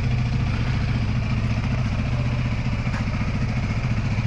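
Honda Aviator scooter's single-cylinder four-stroke engine idling steadily.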